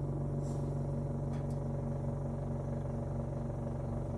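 Steady droning hum with a low rumble from a medical oxygen concentrator's compressor, running to supply oxygen to a MAPP gas welding torch flame.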